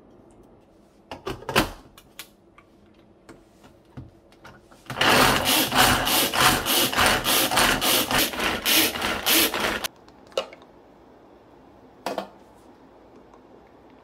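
Hand-powered pull-cord food chopper worked with rapid repeated pulls, its blades spinning and chopping peeled garlic cloves in the plastic bowl: a dense whirring rattle lasting about five seconds, starting about five seconds in. A few light knocks and clicks come before and after it.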